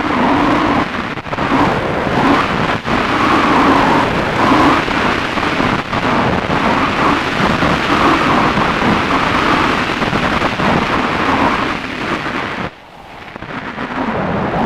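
Wind rushing and buffeting over the onboard camera microphone of a Multiplex Solius RC glider in flight, a loud, rough rumble; it dips briefly about two seconds before the end as the plane skims low over the grass.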